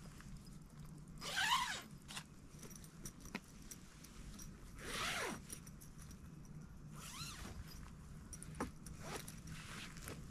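A zipper pulled in three separate strokes, about a second in, near the middle and about two-thirds through, the first the loudest, followed by a few light clicks.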